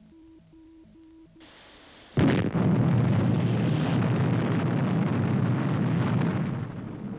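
Electronic beeping from a tracking screen, about two beeps a second, stops about a second and a half in. Then a rocket launch sound effect starts with a sudden loud blast and carries on as a sustained rumbling roar that begins to fade near the end.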